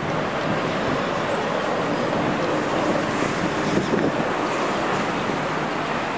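Steady traffic noise of cars passing on a highway.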